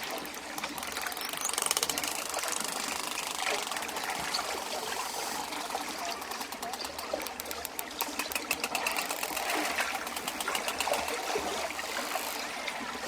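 Dolphin clicking: rapid trains of clicks over a steady hiss of water noise.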